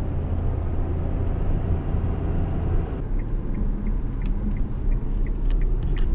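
Steady low rumble of road and engine noise inside a moving Kia car's cabin. About halfway through the higher part of the noise falls away and faint, evenly spaced ticks come in, a little over two a second.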